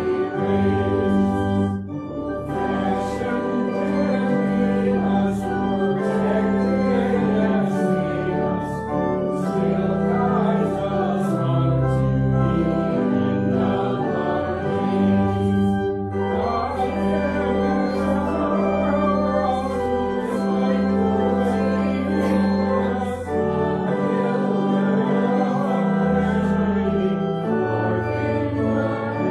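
Congregation singing a hymn with pipe organ accompaniment: the organ holds steady chords under the voices, with brief breaks between phrases.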